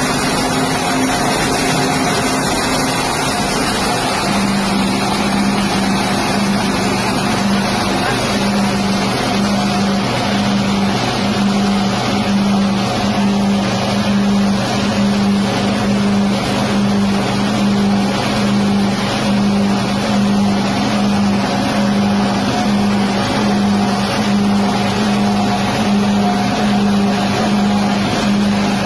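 Rice-husk grinding machine driven by a 6.5 HP petrol engine, running steadily with a loud engine hum over the noise of the mill. The hum drops in pitch about four seconds in and then holds steady.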